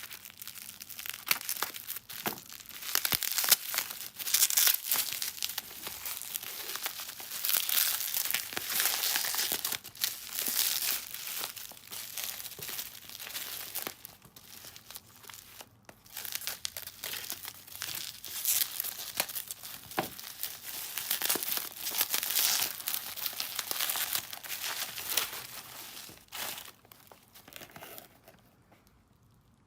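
Packaging being unwrapped: wrapping crinkling and tearing in irregular handfuls, with many small clicks. It dies away near the end.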